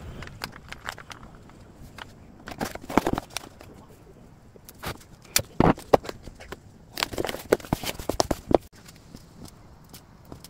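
Kraft paper and a small cardboard box being handled and folded by gloved hands: short bursts of paper rustling and crinkling mixed with sharp clicks and taps, in three clusters about three, five and a half, and seven to eight seconds in.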